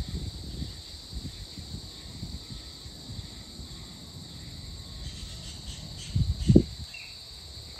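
Evening chorus of crickets and other insects: a steady high-pitched trill. Under it runs a low, uneven rumble that swells loudly for about half a second some six seconds in. A brief bird chirp comes near the end.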